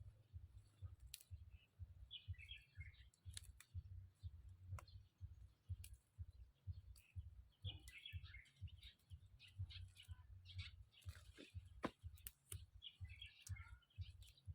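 Faint bird chirps, three short runs of calls about five seconds apart, over scattered light clicks and a low rumble.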